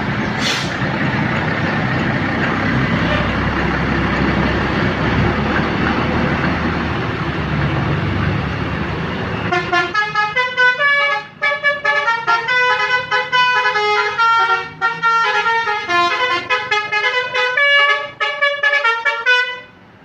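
A heavy vehicle's engine and road noise for about ten seconds. Then a tour bus's telolet horn plays a fast tune of shifting multi-note horn tones for about ten seconds and stops abruptly near the end.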